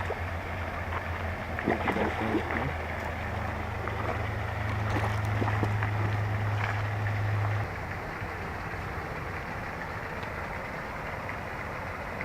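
A low, steady motor hum that cuts off suddenly about seven and a half seconds in, over a constant background of outdoor noise with a few faint clicks early on.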